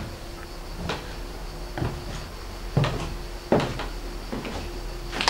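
Footsteps across a marble-tiled floor: a series of about five dull knocks roughly a second apart, the two in the middle the loudest.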